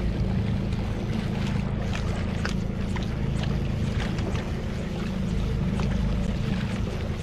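A boat's engine running steadily, a low hum, with scattered faint clicks over it.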